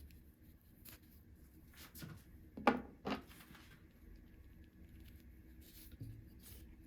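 Hands and small tools handling bicycle rim brake parts: scattered light clicks and rubbing sounds, with two sharper knocks close together about three seconds in.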